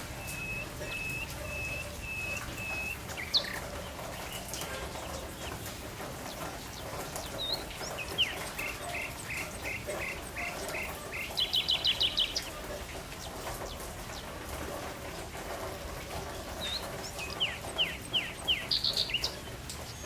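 Songbirds singing after rain: runs of short repeated high whistled notes, a fast high trill about halfway through, and a quick series of down-slurred notes with another trill near the end, over a steady soft background hiss.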